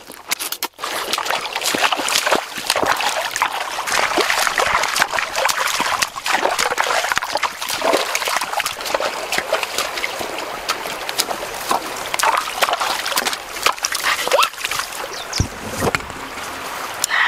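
Water splashing and trickling as a whole plucked chicken is dunked and sloshed about in a shallow, rocky stream.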